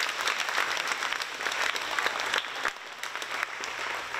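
Audience applauding: many hands clapping densely, easing slightly after about two and a half seconds.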